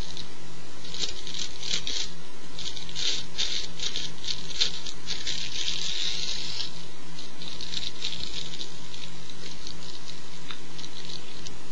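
Close, irregular crinkling and rustling of rolling paper and dry herb in the fingers as a joint is rolled. The crackles come in dense bursts for about seven seconds, then thin out, over a steady low electrical hum.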